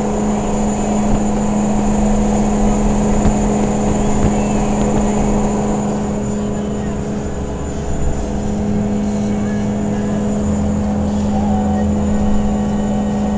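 Ford 6.0L Power Stroke V8 turbodiesel running steadily at around 3,000 rpm under heavy load, pulling an 11,000 lb trailer up a 7% grade. Heard from inside the cab with the windows down, so wind and road noise are mixed in with the engine drone.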